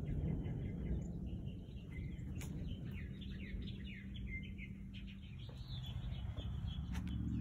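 Small birds chirping and twittering, busiest in the middle of the stretch, over a low continuous rumble.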